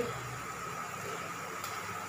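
Onions and ginger-garlic frying gently in oil in a steel pan on a gas stove: a steady low sizzling hiss, with a faint steady whine under it and one small click about one and a half seconds in.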